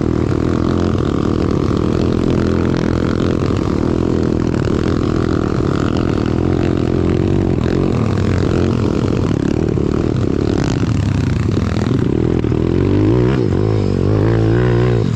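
A 190cc single-cylinder pit bike engine running hard under throttle. Its pitch wavers up and down as the throttle changes, most of all in the last few seconds.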